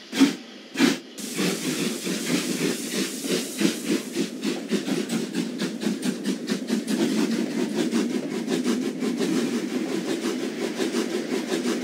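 Small steam tank engine getting its train under way: a few separate puffs, then quick, steady chuffing with the coaches rumbling over the rails.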